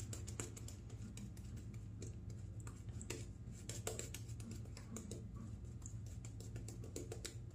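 Shaving brush working soap lather over the face and neck: a quiet, dense run of fine crackling clicks from the bristles and foam.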